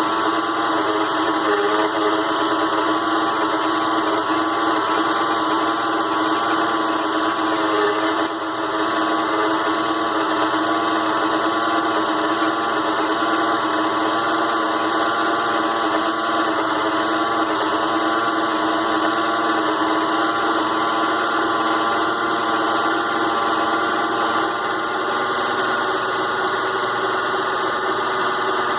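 ZhouYu 6-in-1 mini lathe running steadily, its DC motor and spindle giving a constant whine while it turns aluminium stock. The sound drops briefly about eight seconds in, then carries on at the same pitch.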